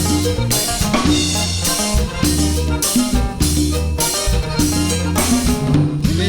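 A cumbia band playing an instrumental passage with no singing: a drum kit keeping a steady beat over held bass notes and a melody.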